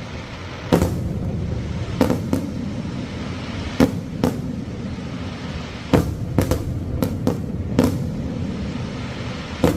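Fireworks going off: about a dozen sharp bangs at irregular intervals, some in quick pairs, over a steady low background rumble.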